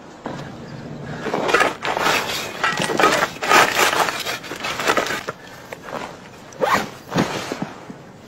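Loose gravelly earth and stones crunching and scraping in irregular bursts as hands scoop them.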